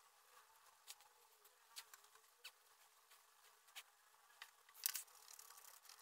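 Faint pencil strokes scratching on drawing paper: a few short scratches about a second apart, the loudest about five seconds in. After it comes a soft, steady rubbing as a fingertip blends the graphite shading.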